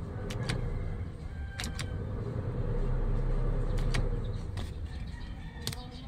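Steady low hum inside a car cabin, swelling slightly in the middle, with a few light sharp clicks scattered through it.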